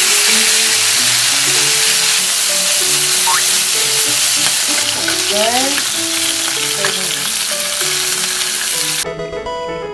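Beef steaks (chuck flap and top blade) sizzling loudly in hot oil in a grill pan. The sizzle cuts off abruptly near the end, leaving only light background music.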